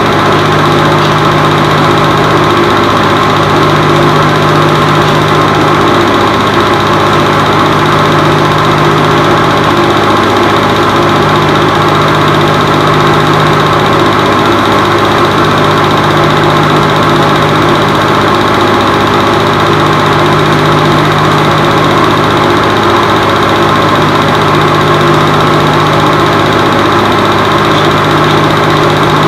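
Film projector running: a steady mechanical whir at an even level, with a low hum that swells and fades slightly every few seconds.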